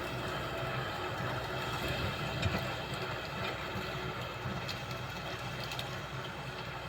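Kubota M6040S tractor's four-cylinder diesel engine running steadily under ploughing load, with a low drone and a few sharp clicks and knocks from the machine.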